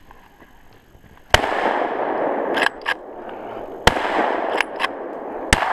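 Three loud hunting-gun shots: the first about a second and a half in, the next about two and a half seconds later, the third about a second and a half after that. A few weaker cracks and a steady loud rushing noise fill the gaps between them.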